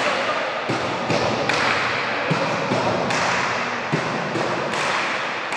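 A few dull thuds ring out in a large indoor futsal hall, over the hall's steady reverberant background noise.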